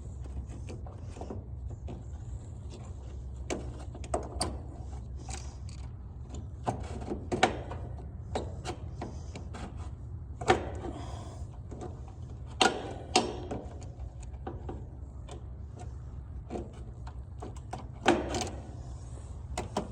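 Scattered clicks, taps and sharp knocks of hand tools and metal parts being worked in an air-conditioner condenser's electrical compartment as the run capacitor is freed, with the loudest knocks about 7, 10, 12 to 13 and 18 seconds in. A steady low hum lies underneath.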